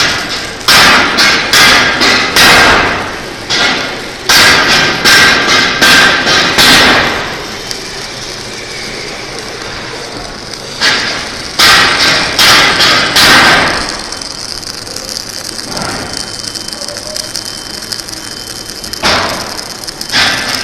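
Semi-automatic (MIG/CO2) welding arc crackling in four bursts of roughly two to three seconds each, with pauses between, the level pulsing within each burst.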